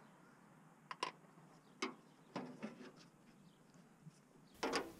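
Faint, scattered clicks and light metallic taps, about half a dozen, from hand tools working the bolts of an old steel truck fender during its removal.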